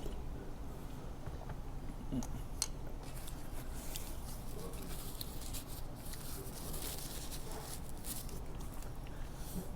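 Someone eating a meal, chewing, with scattered light clicks and clatter of chopsticks and tableware on dishes over a steady low rumble.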